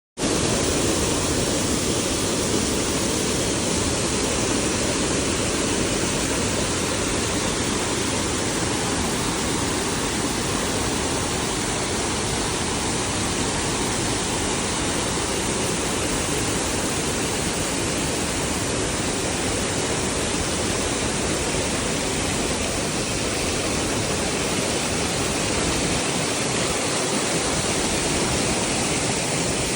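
Waterfall heard up close: a loud, steady rush of falling water that fades out near the end.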